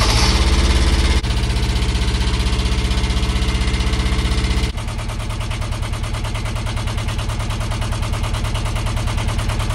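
Narrowboat's marine diesel engine running with an even, rhythmic beat after an oil and filter change, while the new filters are checked for leaks. A little under five seconds in it steps down and carries on quieter.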